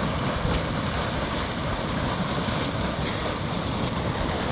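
Hot mud pot boiling, giving a steady churning, bubbling noise.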